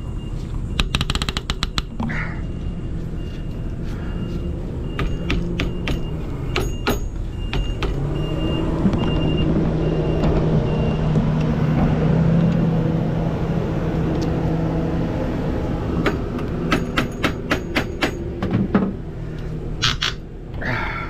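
Clicks and taps of a hand tool working on a power wheelchair's metal frame and caster fork, over a steady low engine-like hum that swells in the middle and fades again.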